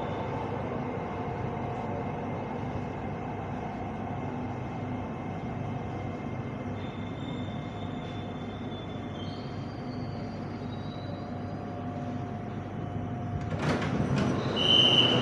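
Inside an SRT Red Line electric commuter train arriving at a station: steady running noise with faint whining tones. About thirteen and a half seconds in, the sound gets suddenly louder as the sliding doors open, with a short high beep.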